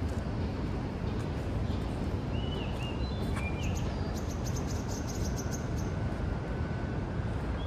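Steady low rumble of city traffic, with a few short bird chirps a little over two seconds in and a fast run of high chirps just after.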